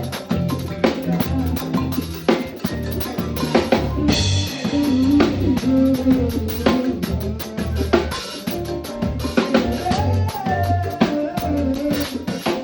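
Live band music: a drum kit playing a steady beat with snare and bass drum over a strong bass line, with a melodic line bending in pitch above it through the middle.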